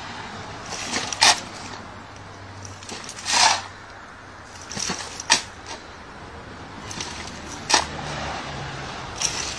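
Steel shovel blade scraping and knocking into wet soil in a trench, with shovelfuls of dirt thrown into a wheelbarrow. About five short scrapes and knocks come roughly two seconds apart, one of them a longer scrape.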